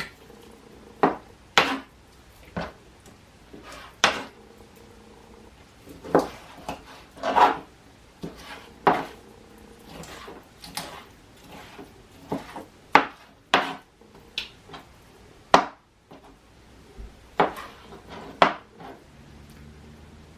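Kitchen knife knocking on a cutting board as raw chicken breast is cut into bite-sized chunks: irregular sharp knocks, about fifteen, spaced roughly a second apart.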